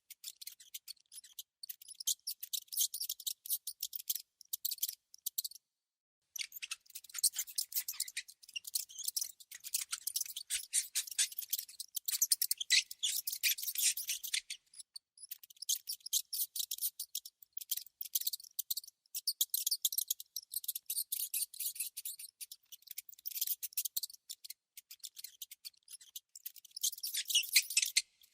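Rodent sounds: rapid, high-pitched clicking and chittering in bursts, with a brief pause about six seconds in.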